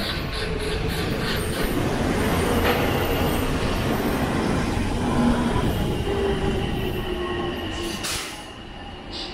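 Silver blue-striped electric commuter train pulling into the platform and braking to a stop: a dense rumble of wheels and motors, with drawn-out squealing tones as it slows. A short hiss about eight seconds in, and the noise then drops off.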